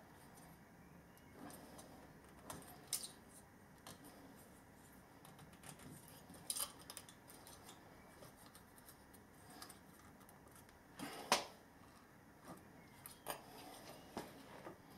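Scattered small metallic clicks and knocks of parts being handled and fitted during electric motor reassembly, the loudest knock about eleven seconds in.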